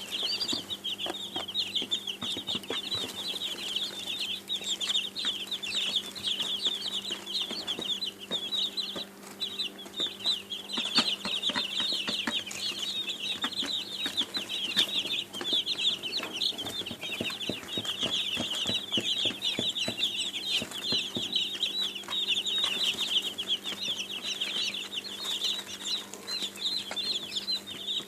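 A brood of baby chicks peeping continuously, many short high cheeps overlapping in a dense chorus, with scattered small taps and a steady low hum underneath.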